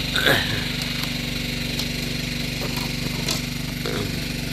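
Engine running steadily with a fast, even throb. A brief falling sound comes just after the start, and there are a couple of light clicks later on.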